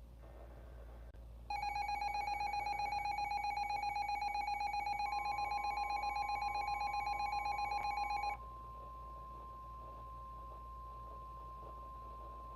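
Emergency alert tones: a loud, rapidly pulsing electronic alarm tone sounds for about seven seconds. About halfway through it, a steady NOAA Weather Radio 1050 Hz warning alert tone starts and carries on alone after the pulsing stops, signalling that a warning message is about to be broadcast.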